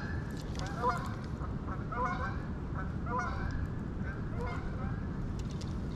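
Geese honking repeatedly, a string of short calls coming about one to two a second, over a steady low background rush.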